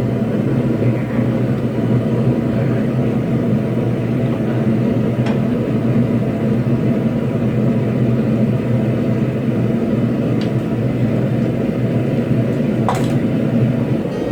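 A forge running with a steady, even rushing noise while the steel heats, with a few faint metal clicks.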